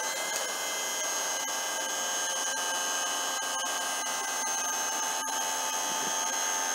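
The electric hydraulic pump motor of a commercial wheelchair lift is running, raising the platform with a steady whine.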